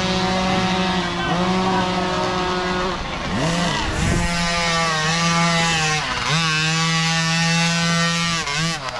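Small two-stroke youth dirt bike engine revving high with a buzzy note. It drops and climbs again three times as the throttle is chopped and reopened: about a third of the way in, around two thirds of the way in, and near the end.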